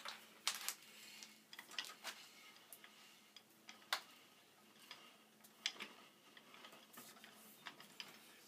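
Ratchet of a Ridgid hand pipe threader clicking as the die head is backed off freshly cut threads on black iron pipe: scattered sharp clicks at irregular spacing.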